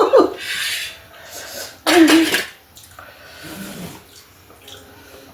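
A person hissing breath through the mouth against the heat of very spicy noodles, then one loud, short burst of breath and voice about two seconds in.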